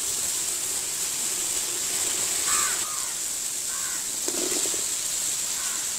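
A few short crow caws, most in the second half, over the steady hiss of onion and spice paste frying in oil in a metal pan; a short low buzz sounds about four seconds in.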